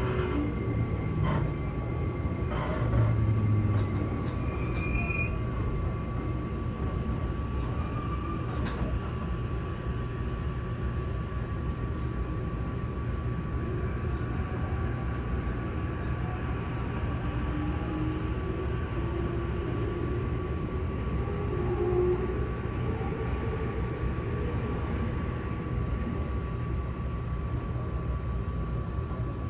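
Running noise inside an E257 series express train car at speed: a steady rumble of wheels on rail with a constant high whine. A few sharp clicks come in the first nine seconds, and faint tones slide up and down in pitch around the middle.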